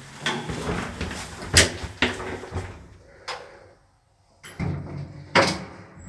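The doors of an old 1968 passenger lift being worked by hand: a run of sharp clunks and latch clacks with rattling between them. The loudest knocks come about a second and a half in and again near the end, with a brief drop to near silence in between.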